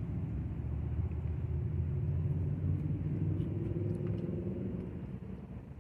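Low engine rumble from a passing motor vehicle, swelling over a few seconds and fading away near the end.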